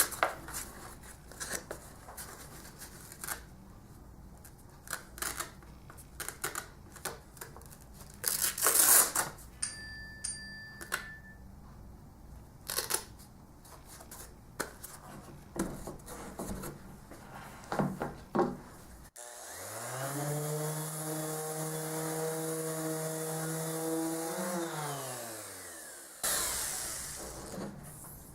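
Handling clicks and rustles, then about two-thirds of the way in a Bosch ROS20VS random orbital sander starts running with a steady motor hum, and after about six seconds it is switched off and winds down in pitch.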